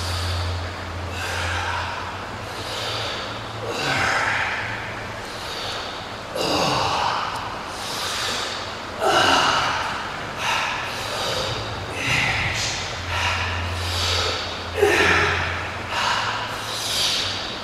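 Heavy, rhythmic breathing of a man under exertion, a forceful breath in or out roughly every second as he works through a set of dumbbell pullovers. A faint low hum comes and goes underneath.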